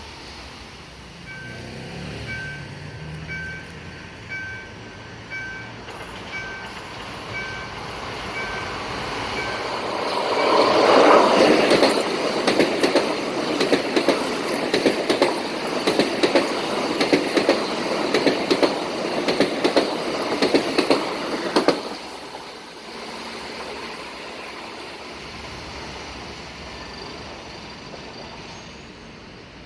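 A Sarmiento line train passing at speed, its wheels clicking rhythmically over the rail joints; it swells in about ten seconds in, stays loud for roughly twelve seconds and then fades. Before it arrives, a two-tone electronic beep repeats about one and a half times a second, stopping as the train comes through.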